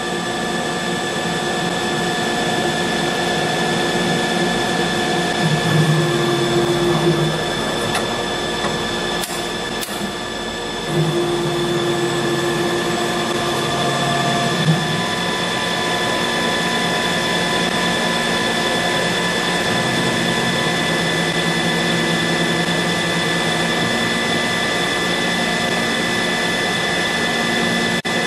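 EagleTec EA-TL1530B CNC wood lathe running, with a steady whine from its spindle and drive motors as the cutter turns a wooden pen container. Partway through, the motor sound shifts and there are a few clicks as the electric tool rest changes tools. About eleven seconds in it gets louder as cutting resumes on the outside of the piece.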